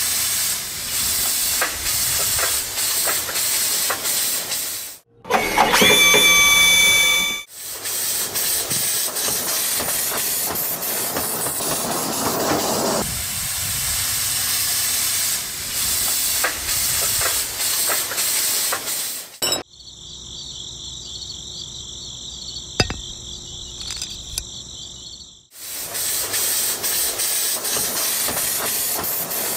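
Loud, steady hissing in several stretches that start and stop abruptly. About six seconds in comes a louder passage with a high, whistle-like tone. In the middle stretch the hiss drops away, leaving a quieter sound with steady high tones.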